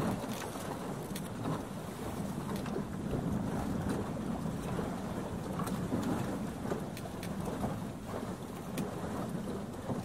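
Sailing dinghy under way: a steady wash of water and wind around the boat, with scattered clicks and knocks from the boat and its gear.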